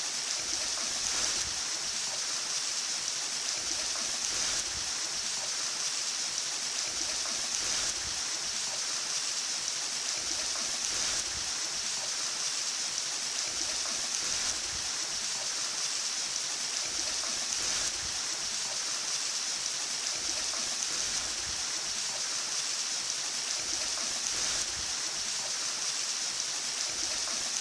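Steady rushing water of a waterfall, an even hiss that runs on without a break.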